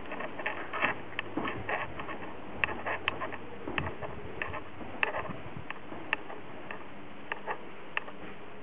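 Irregular sharp clicks and light taps, several a second, a few louder than the rest, from a Glock 17 pistol in a Roni carbine kit being handled.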